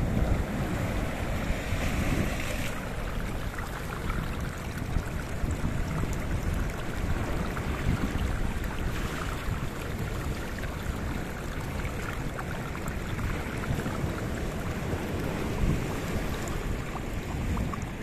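Sea surf breaking and washing over flat shoreline rock shelves: a continuous rush of wave noise with the occasional louder splash.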